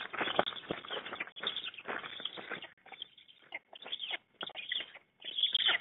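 Black stork young jostling around a feeding adult on the nest: wings flapping and nest sticks rustling, with hoarse begging calls. The noise is dense at first, then breaks into separate short bursts about halfway through.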